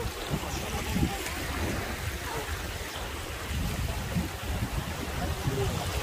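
Rushing water of shallow river rapids flowing around the boat, a steady noise with a low rumble underneath.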